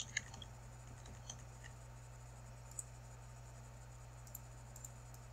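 A few faint, sharp computer mouse clicks, a quick cluster at first and then single clicks every second or so, over a steady low electrical hum.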